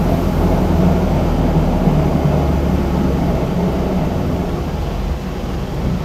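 A car driving, with a steady low rumble of engine and road noise.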